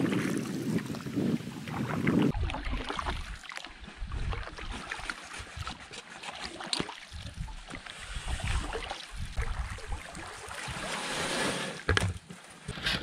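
Canoe being paddled across a lake: paddle strokes swishing through the water and water lapping at the hull, with wind rumbling on the microphone for the first couple of seconds. A short knock near the end.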